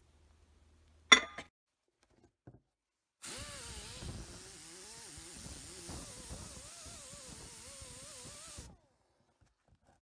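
A sharp knock about a second in, then an angle grinder fitted with a wire cup brush scrubbing the surface of a cast copper ingot, its pitch wavering up and down; it stops abruptly.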